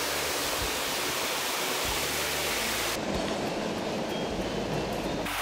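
Steady rushing of a small waterfall cascade in a rocky mountain stream, an even hiss with no pitch. About three seconds in, the sound turns duller as the high hiss drops away.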